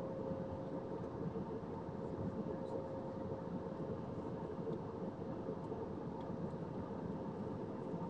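Steady cabin noise of a jet airliner in cruise flight, heard inside the cabin: an even rush of airflow and engine noise with a steady hum on top.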